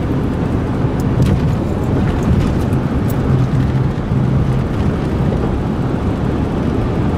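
Steady low rumble of tyre and wind noise inside a car cabin while cruising at freeway speed.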